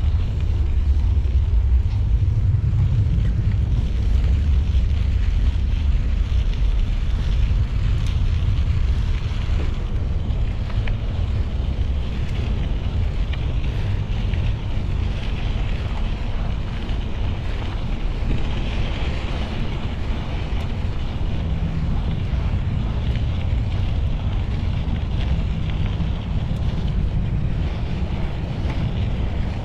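Steady wind noise buffeting the microphone of a camera on a moving bicycle, a continuous low rumble.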